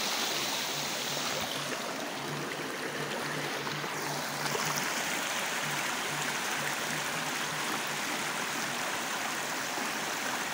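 Shallow rocky forest stream rushing steadily over stones.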